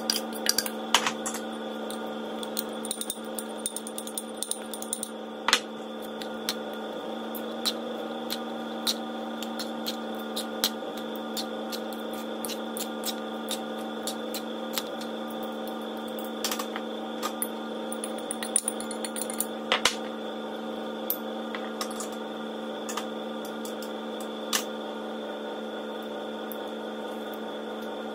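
Scattered clinks and scrapes of a metal utensil against a bowl as chopped boiled pork is tossed, most frequent in the first few seconds and again around the middle. A steady electrical hum from an appliance runs beneath them throughout.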